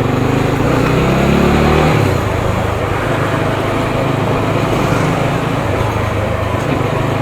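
Single-cylinder engine of a TVS Apache RTR 200 motorcycle under way, its pitch rising for about two seconds, then dropping and running steadily, over a constant rush of wind and road noise.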